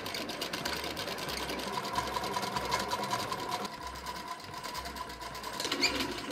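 Hand-cranked Singer 201K sewing machine running, its mechanism making a rapid, even clatter as the needle goes up and down.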